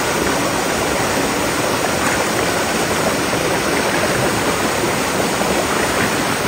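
River water rushing and tumbling over rocks, heard close up as a loud, steady rush.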